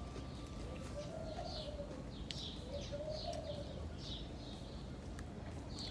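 A dove cooing: a soft, low call about a second long, repeated about every two seconds, with small birds chirping in short high notes in between.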